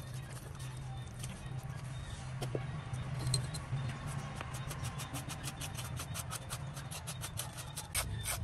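Wet soil stirred with a wooden stick in a plastic bucket, then a cabbage shredded with a small metal blade in quick scraping strokes, several a second, that grow denser towards the end. A steady low hum runs underneath.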